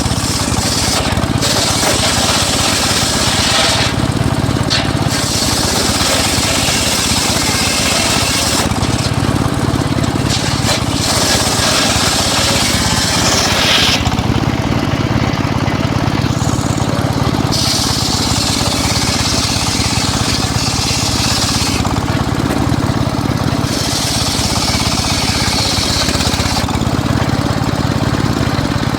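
Homemade circular saw cutting teak wood. Its steady drone carries about five high, hissing cuts of several seconds each, with the blade spinning freely between them.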